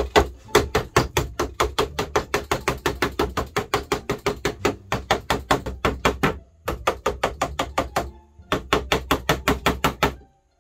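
Rubber mallet rapidly tapping a wooden dresser frame, about five or six blows a second, to seat its joints during a dry fit. The tapping breaks off briefly about six and a half and eight seconds in.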